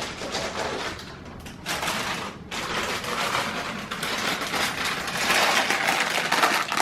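Close handling noise: rustling with many small clicks and knocks as computer parts and their packaging are handled, briefly quieter about two seconds in, then busier toward the end.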